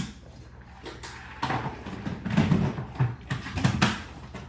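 Close-up eating noises: chewing and mouth smacking, in a few irregular bursts starting about a second and a half in.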